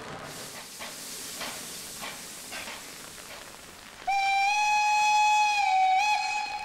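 Steam whistle of the Class 70 tank locomotive 70 083 sounding one long, loud, steady blast that starts abruptly about four seconds in, after a low hiss. The pitch dips and wavers briefly near the end of the blast.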